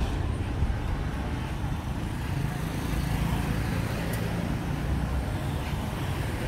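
City street traffic: motorbikes and cars driving past, a steady low engine and tyre rumble that grows a little louder midway.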